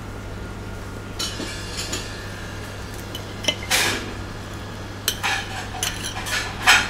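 Knife and fork scraping and clinking on a ceramic plate while cutting toast, in irregular strokes with a few louder scrapes.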